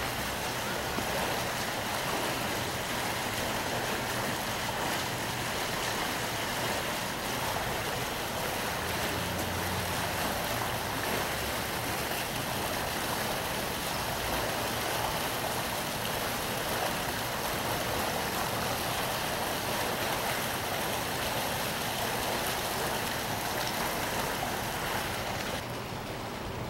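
Steady rush of water pouring from a discharge outlet on a moored cargo ship's hull and splashing into the harbour water among the ice, with a low hum beneath. It drops off sharply near the end.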